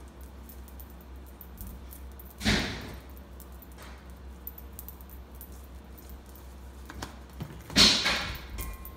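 Handling sounds of seasoning fish fillets by hand in a stainless steel bowl: spice bottles being capped and shaken, with small clicks, and two short, loud swishes about two and a half seconds in and near the end, the second one the loudest.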